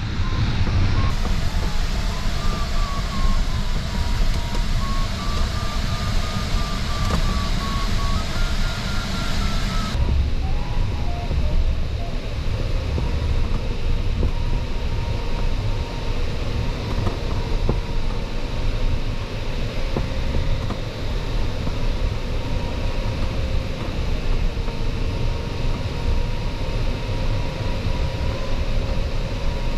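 Steady rush of airflow in a glider cockpit, with the variometer's electronic tone sounding over it. For the first ten seconds or so the tone steps up in pitch, the sign of the glider climbing in a thermal. After that the rush turns duller and a steadier, wavering vario tone carries on.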